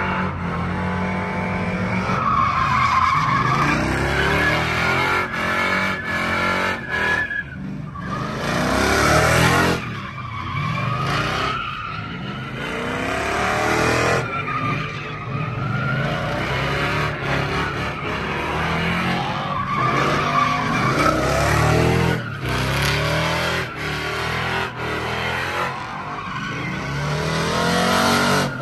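Dodge Ram pickup doing donuts in a burnout: the engine revs up and down over and over while the rear tires spin and screech on the pavement.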